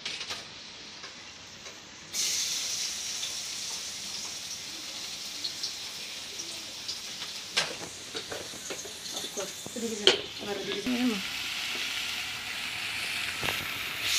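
Sliced onions frying in hot oil, a steady high sizzle that starts suddenly about two seconds in, with a couple of sharp clicks of a spatula against the pot.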